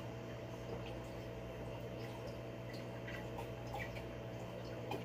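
Two people drinking water from glass tumblers: faint sips and swallows with small scattered ticks, over a steady low hum in the room.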